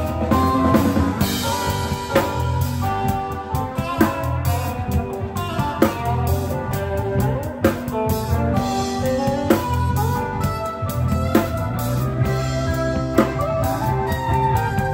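Live rock band playing: a drum kit with a hard snare accent about every two seconds, under electric guitar and bass guitar.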